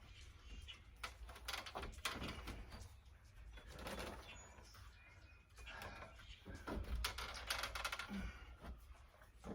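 Scattered clicks, taps and rustles of a flexible insect screen being pressed and worked into a storm door's frame.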